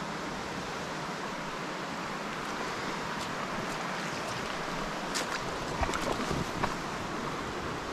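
Shallow, rocky mountain creek running with a steady rushing sound, with a few short, sharp little sounds between about five and six and a half seconds in.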